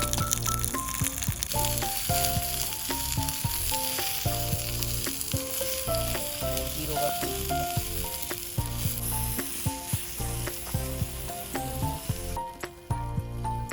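Food sizzling in a pan over a campfire, a steady hiss that stops near the end. Light background music plays alongside.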